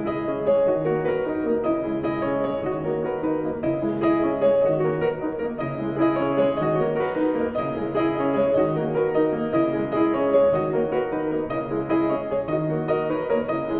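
Background music: piano playing a steady run of notes.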